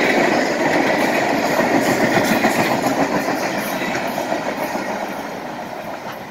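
Freight train of loaded flatcars rolling past at close range, the steel wheels running on the rails. The sound fades over the second half as the last cars go by.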